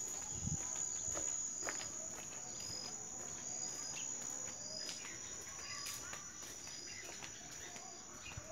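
Insects trilling steadily at a high pitch, with short chirps repeating at irregular intervals; faint footsteps on paving can be heard beneath.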